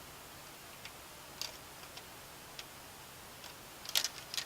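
Scattered light clicks and ticks of a screwdriver working a screw through a plastic fan filter into a 120mm case fan, with a short cluster of louder clicks near the end.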